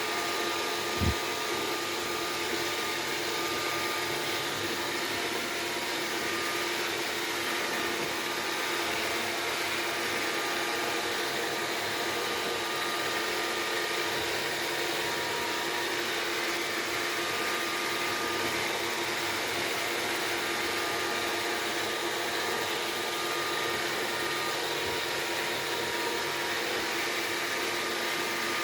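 Robot vacuum cleaner running steadily, its suction fan giving an even whir with a faint steady whine. There is a brief low knock about a second in.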